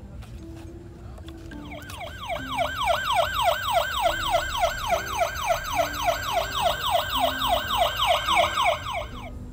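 Electronic siren of a battery-powered Adventure Force toy ambulance, set off by its light-and-sound button. It wails in quick falling sweeps, about four a second, starting about a second and a half in and cutting off suddenly near the end.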